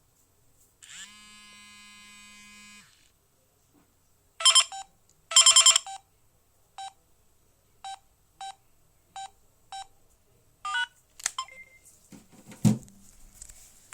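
Samsung SGH-E900 mobile phone sounding its alerts: a steady electronic buzz for about two seconds, then two loud tone bursts, then a row of short single beeps about half a second to a second apart. Near the end come a sharp click and a dull knock.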